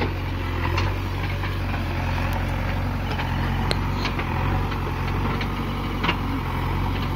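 JCB 3DX backhoe loader's diesel engine running steadily under load as the machine climbs out of soft mud. A few sharp knocks cut through it, near the start, in the middle and near the end.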